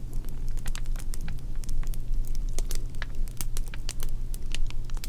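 Crackling fire: irregular snaps and pops over a low steady hum.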